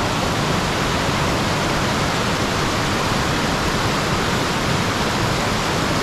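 Waterfall: a steady rush of falling water.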